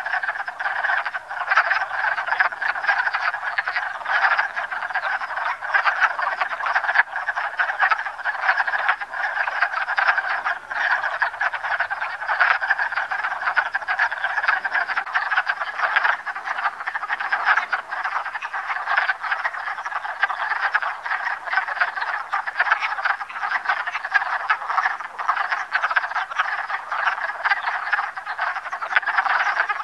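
A breeding chorus of many wood frogs, a steady, dense chatter of short overlapping calls from males calling to attract mates.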